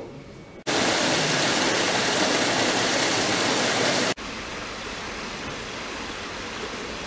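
Small waterfall splashing down a rock face: a steady rush of water that cuts in sharply about half a second in and cuts off about four seconds in. A softer steady hiss follows.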